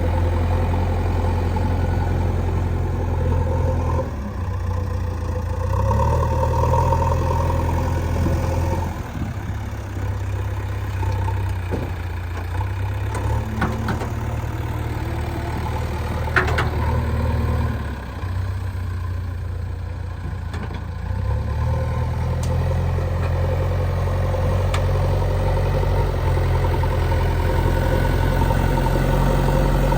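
Diesel engine of a backhoe loader at work, with a tractor's diesel alongside, running steadily while its low note steps up and down every few seconds as the load changes. A few short knocks sound around the middle.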